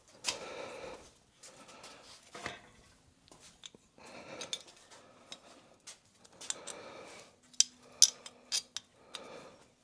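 Metal parts and hand tools clinking and rattling as new bumper brackets are handled and fitted, with scattered rustling and a quick run of sharp metallic clicks about eight seconds in.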